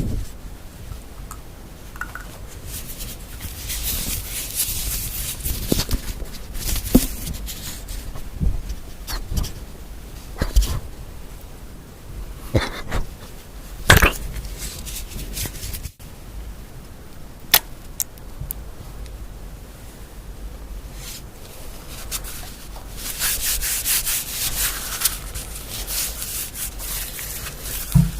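Close-miked rubbing and scratching on objects in spells, with a few sharp taps or clicks in between.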